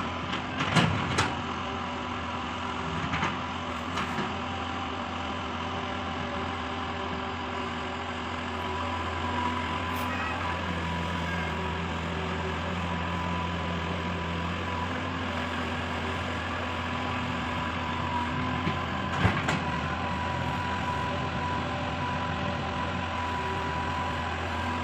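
Hydraulic excavator's diesel engine running steadily, with a few sharp knocks in the first few seconds and another about three-quarters of the way through.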